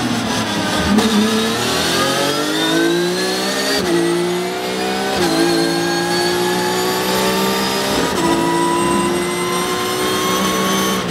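Porsche 911 GT3 Cup's naturally aspirated flat-six accelerating hard out of a slow corner, heard from inside the cockpit. Its pitch climbs through the gears, with three quick upshifts about four, five and eight seconds in.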